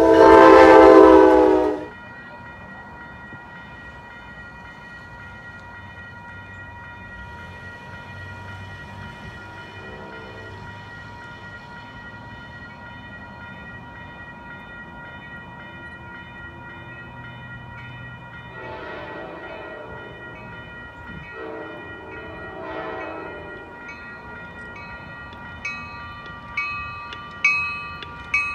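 A train's air horn blows loudly for about two seconds at the start. Then a grade-crossing bell rings steadily while the approaching Amtrak passenger train sounds its horn in the distance: two long blasts past the middle, then short sharp notes growing louder near the end as it nears the crossing.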